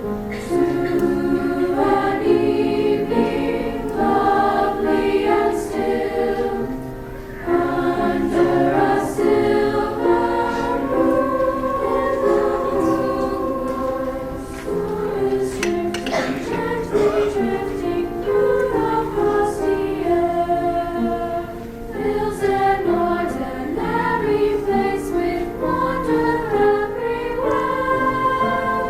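Women's choir singing in several-part harmony, with held notes and brief dips between phrases about every seven seconds.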